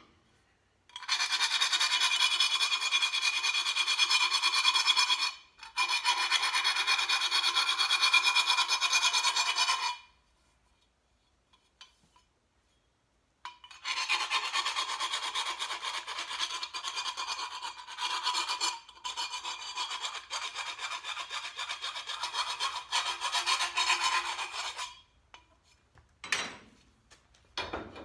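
Abrasive tool grinding the end of a steel roll-cage tube to trim its fit, in two long runs, the first broken by a brief pause, with a silence of a few seconds between them.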